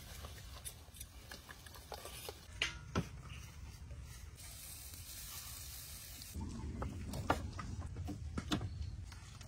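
Food-preparation sounds over a steady low hiss: a few sharp clinks of a metal spoon, then, from about six seconds in, sharp knocks of a knife on a wooden chopping board as calamansi is sliced.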